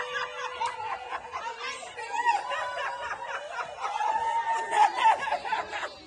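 A group of people, a child among them, giggling and chattering over one another.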